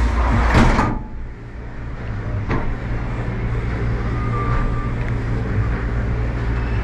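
Steady low mechanical hum of a large transportable Ferris wheel's drive machinery, heard from a gondola at the boarding platform. A loud burst of noise cuts off suddenly about a second in, and there is a single sharp click a little later.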